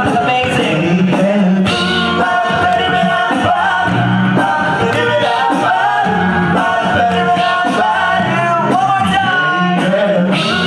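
Male a cappella group singing in close harmony over a low sung bass line, with no instruments.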